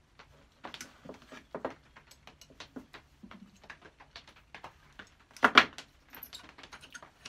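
Small metal clicks and taps as the parts of a Stanley No. 71 router plane are handled and taken apart on a wooden board, with one louder knock about five and a half seconds in.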